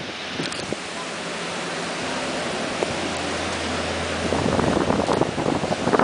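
Ocean surf washing in, a steady rushing wash, with wind buffeting the microphone. The gusts grow rougher and louder over the last couple of seconds.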